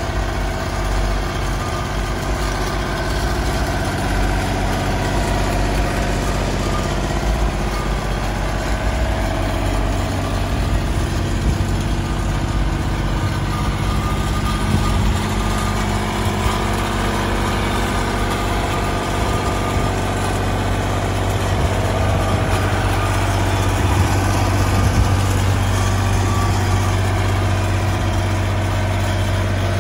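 The cable puller's 35 hp Yanmar diesel engine idling steadily.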